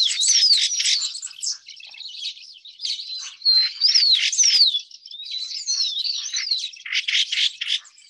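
Sooty thrush calling: a run of high, scratchy chirps and squeaky whistled notes that slide up and down, in bursts with short dips about two and five seconds in, stopping just at the end.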